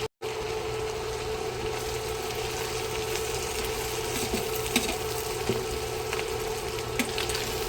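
Ground chicken, onion, bell pepper and garlic sizzling steadily in olive oil in a pan, with a steady hum underneath and a few light clicks.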